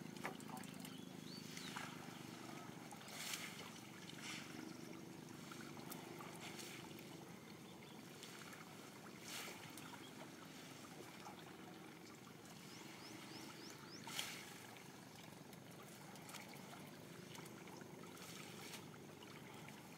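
Faint water trickling and splashing as a wet fishing net is hauled out of the water over a wooden boat's side, with scattered soft knocks. A faint low hum comes and goes.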